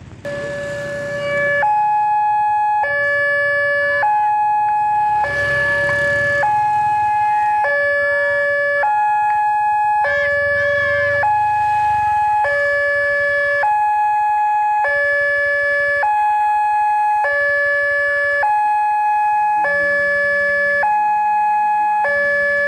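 Railway level-crossing warning alarm sounding a two-tone electronic signal: a lower and a higher tone take turns, each held a little over a second. It starts just after the beginning and keeps a steady level as the crossing closes.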